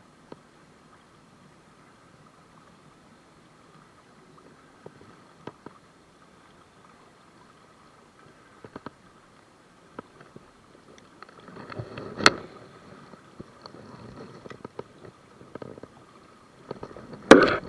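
River water moving and gurgling, quiet at first with scattered faint clicks, then sloshing louder about eleven seconds in. A few loud sharp knocks come near the end.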